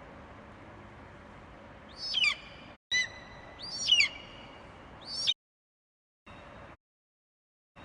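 An eagle calling: four short, high, shrill calls between about two and five and a half seconds in, over a steady background hiss. After that the sound cuts out, with only a brief return of the hiss.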